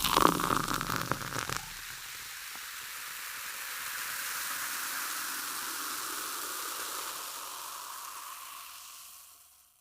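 Carbonated soda water fizzing: a loud rush of liquid lasting about a second and a half, then a steady fizzing hiss of bubbles that fades out near the end.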